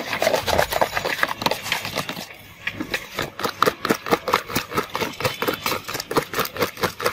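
A green plastic hand churner with a star-shaped head whirled fast in a red plastic jug of aloe vera gel juice. It makes a rapid wet clatter of plastic knocking on plastic and liquid sloshing, about four or five strokes a second, with a short pause about two and a half seconds in.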